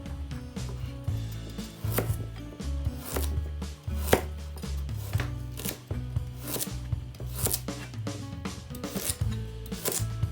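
A knife chopping on a cutting board in irregular strokes, over background music with a steady bass line.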